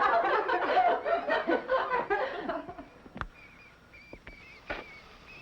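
A group of people laughing at a joke, dying away after about two and a half seconds. Then faint, short, high squeaks repeat, typical of lab rats, with a couple of sharp knocks.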